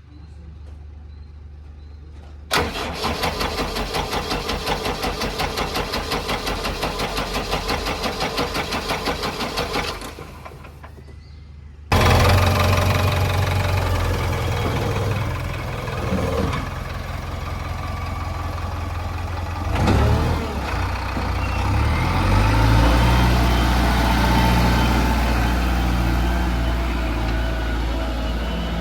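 Diesel engine being cranked by its starter for about seven seconds with a fast, even chugging that stops. Soon after it fires suddenly and runs much louder, the revs shifting up and down a few times.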